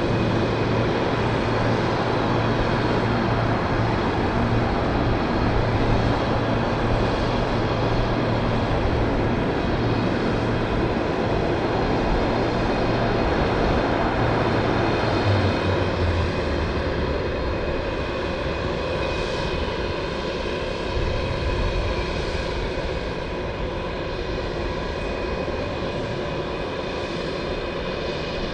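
Allison T56 turboprop engines of a Lockheed C-130H Hercules running while the aircraft stands still: a steady propeller drone with a high, thin turbine whine. About halfway through the low note drops slightly and the sound eases a little.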